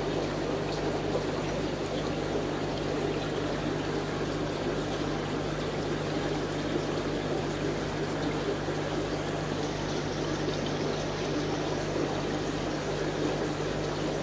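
Aquarium filtration running: water trickling and bubbling steadily in the tank, over a constant low hum.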